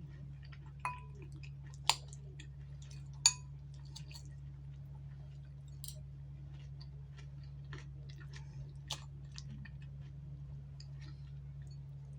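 Close-up eating sounds: chewing with soft mouth clicks, and a few sharp taps in the first few seconds, some ringing briefly, over a steady low hum.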